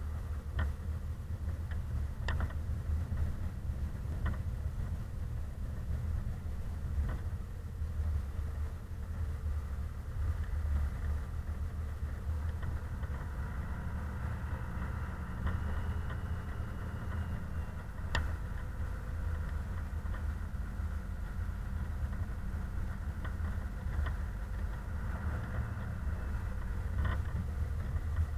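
Dodge Ram 2500's Cummins inline-six turbo-diesel running steadily while the truck pushes snow with a V-plow, a low rumble heard from inside the cab. A few sharp knocks cut through it, the clearest about two seconds in and again about eighteen seconds in.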